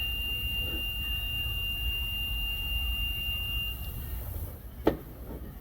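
Plastic-welding hot stapler giving a steady high-pitched whine while it heats a staple into the headlight tab. The whine stops near the end, and a single sharp click follows.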